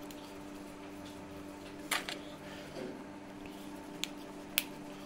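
Hands rolling potato-sago dough into small balls over a steel plate, giving a few sharp clicks and taps: about two seconds in, then twice near the end. A steady low hum runs under it.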